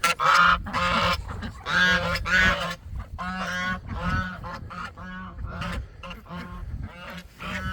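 Domestic geese honking again and again, call after call, loudest in the first three seconds and quieter after.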